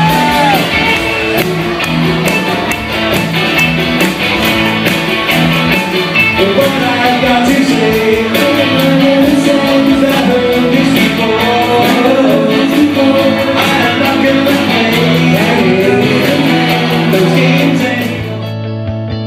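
Live rock band playing: electric guitars, bass and drums with a sung vocal, at a steady beat. About a second before the end the cymbals drop away and it turns quieter.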